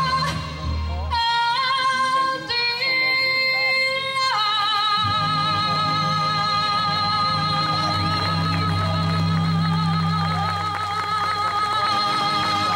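A woman singing into a microphone over backing music: short phrases stepping up in pitch, then about four seconds in a long held note with vibrato.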